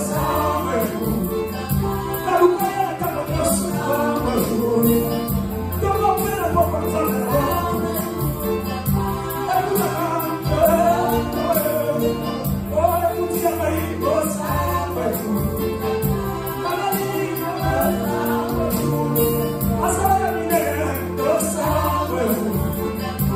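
Gospel worship song: voices singing over a band, with held bass notes and regular percussion hits.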